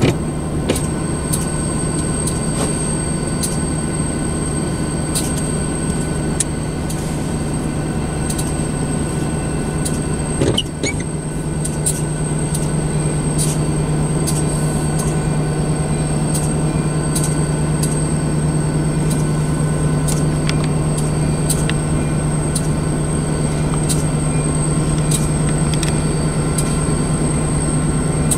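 Union Pacific diesel-electric locomotive running at the head of a slow-moving train, a steady low engine drone that grows a little louder about halfway through, with scattered light clicks.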